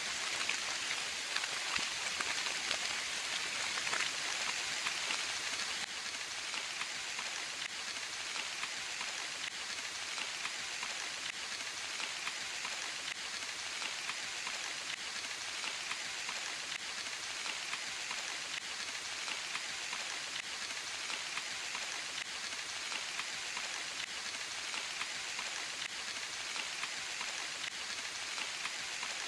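Steady rain falling in a forest, a dense patter of drops on leaves and surfaces, a little heavier in the first few seconds.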